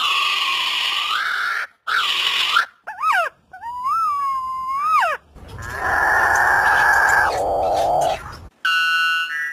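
Several different bird calls in quick succession, split by abrupt cuts. Short harsh calls come first, then a clear whistled call that rises and falls about three seconds in, then a longer harsh call, and a short call with several tones near the end.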